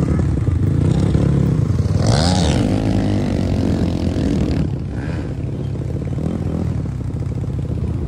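Dirt bike engines running at speed on a group ride, the revs rising and falling as the riders work the throttle, with a sharp climb about two seconds in that then falls away.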